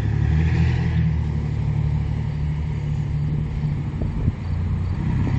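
Steady low hum of engines running, with no break or change.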